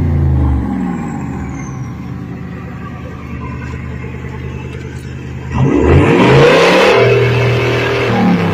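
A 202-horsepower V8 engine revving. The revs drop back to a steady idle in the first second. About five and a half seconds in it is blipped up sharply and louder, then eases off again near the end.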